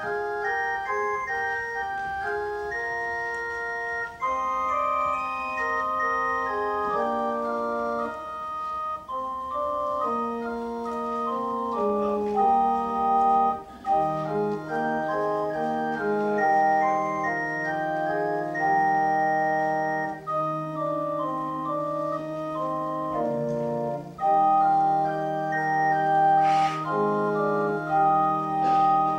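Organ playing slow, sustained chords, with a lower bass line joining about halfway through.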